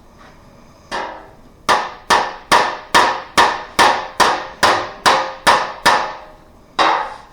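Body hammer tapping on a car's sheet-metal body panel to work out a dent. A single tap, then a run of about a dozen evenly spaced taps a little over two a second, then one more near the end, each ringing briefly.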